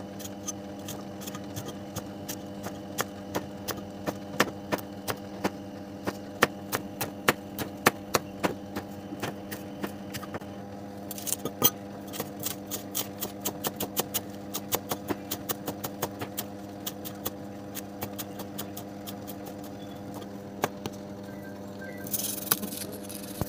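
Chef's knife chopping on a plastic cutting board, slicing red chilli and then coriander stems in quick, even strokes of about two to three taps a second. A steady hum runs underneath, and a brief rustle comes near the end.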